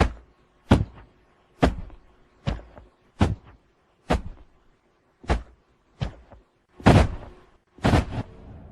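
Body-fall sound effect: a series of about ten heavy thuds, one roughly every second, each dying away quickly, the last a quick double hit.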